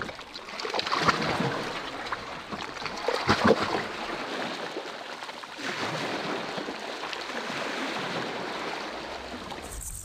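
Sea water lapping and sloshing against rocks, with a few sharper splashes about a second and three seconds in, then the steady wash of small waves breaking on a stony beach.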